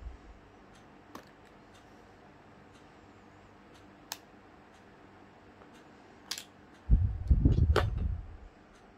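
Small clicks of hands and tools working inside an opened MacBook Pro while the display ribbon cable connector is reseated, then a louder stretch of low handling bumps and clicks near the end.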